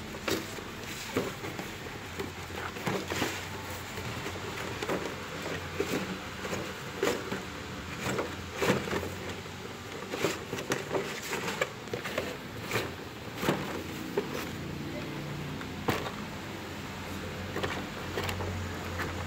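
Cardboard toy box being handled and opened: irregular knocks, taps and scrapes of the flaps and cardboard insert sliding out.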